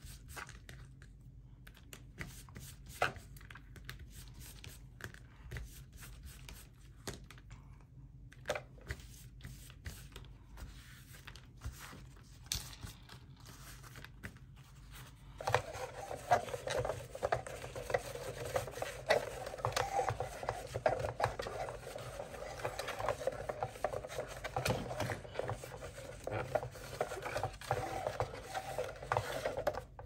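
Handling taps and light clicks on plastic and rubber, then from about halfway a continuous brisk scratchy rubbing as a paper towel scrubs the plastic housing of a Dyson Pure Cool Me fan, cleaning where the filter seal sits.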